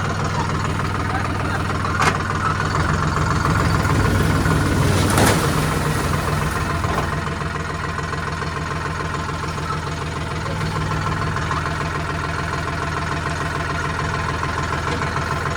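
A vehicle engine running at idle, working a little harder for a couple of seconds from about three seconds in. There is a sharp knock about two seconds in and a louder clatter around five seconds.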